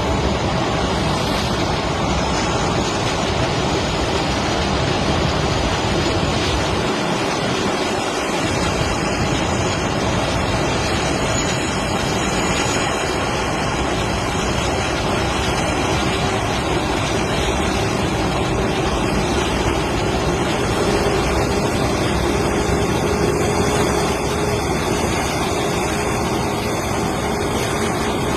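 Jet engine noise from a four-engine Airbus A380 at takeoff power: a loud, steady rush that holds level throughout, with a faint hum underneath.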